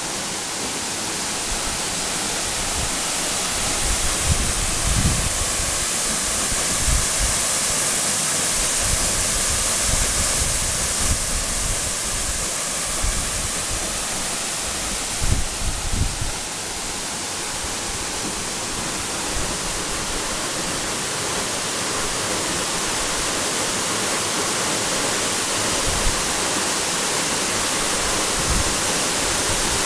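Steady rush of a waterfall about 30 m high, the Cascata del Pesegh fed by the Valmolina torrent, crashing onto rock and into its pool. A few brief low thumps on the microphone.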